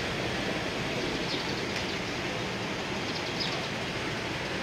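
A line of late-1980s Nissan cars, an F31 Leopard among them, rolling slowly past at walking pace. They make a steady, even noise of engines and tyres with no single car standing out.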